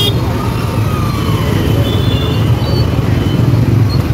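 Loud, steady low rumble of road traffic and street noise, with a few faint short high tones over it.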